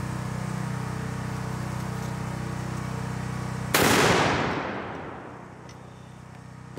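A single shot from a .577 Tyrannosaur big-bore rifle almost four seconds in: a sudden loud report that dies away over about a second and a half as it echoes. Before the shot a steady low hum runs, and it stops at the shot.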